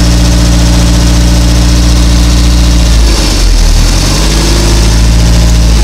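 Mercruiser 470 3.7-litre four-cylinder marine engine running at idle; about three seconds in its steady note wavers and shifts, then settles again. It will only keep running with the choke closed: a carburettor problem, probably obstructed idle jets.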